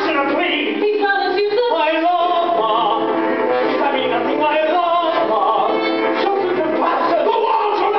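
Live theatre singing with a pit orchestra accompanying, recorded from the auditorium: a sung vocal line gliding in pitch over sustained orchestral chords.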